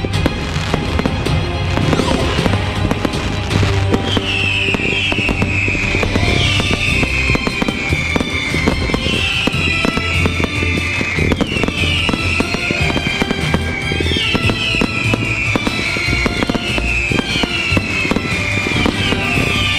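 Fireworks display: dense crackling and banging, with a series of whistles from about four seconds in, each falling in pitch, over music.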